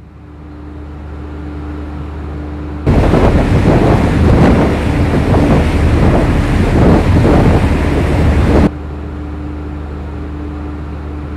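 Loud wind buffeting the microphone for about six seconds, starting and stopping abruptly, over the steady low drone of a ship's engines.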